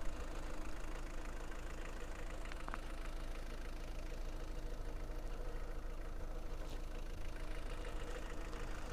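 Car engine running steadily at an even, unchanging pitch, a low hum with no revving.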